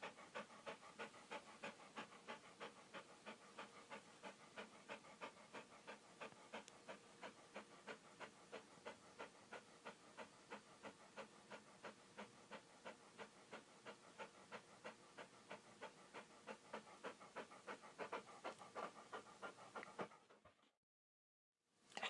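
A dog panting steadily and fast, about three to four breaths a second. The panting stops about twenty seconds in, and after a short silence it starts again.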